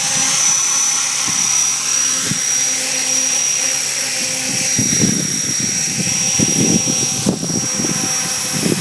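550-size radio-controlled helicopter coming in to land, hovering low over the ground with a steady high whine from its motor and rotor. A gusty low rumble builds in the second half as it settles near the microphone.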